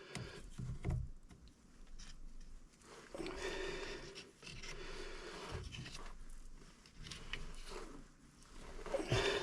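Faint handling noises of work on a pipe joint: scraping, rustling and a few light knocks.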